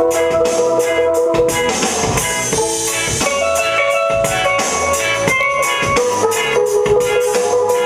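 A pair of steel pans played with sticks, carrying a melody of held, ringing notes over a backing track with a steady drum-kit beat.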